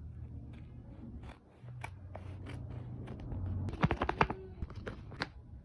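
Hands handling a paper blind bag: scattered crinkles and taps, with a quick cluster of sharper clicks about four seconds in, over a low steady hum.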